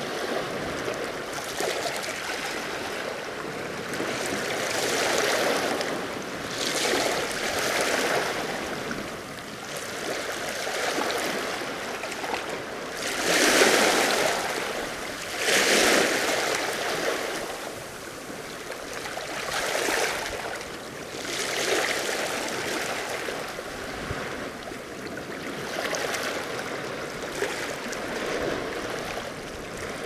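Small sea waves lapping and washing against a rocky shore, surging every couple of seconds. Two louder washes come a little before halfway.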